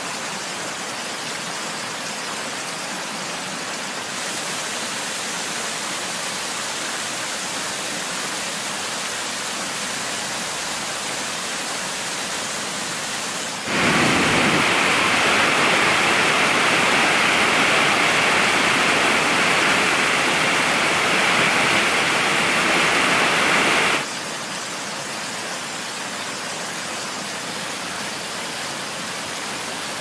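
Waterfall: a steady rush of falling water, which becomes much louder and fuller for about ten seconds in the middle, then drops back to the softer rush.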